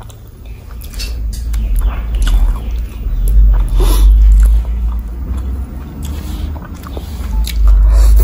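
Close-miked eating of duck curry with rice by hand: wet chewing and lip-smacking with many small clicks, and a bite into food near the end. A heavy low rumble runs underneath and is loudest around the middle and near the end.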